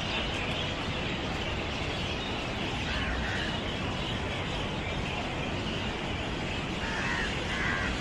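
Steady outdoor city hum, with a few short bird calls about three seconds in and twice near the end.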